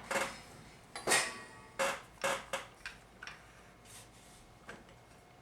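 About seven sharp metallic clicks and clanks at irregular intervals, a few of them ringing briefly, as automatic transmission parts are handled and set down on a workbench.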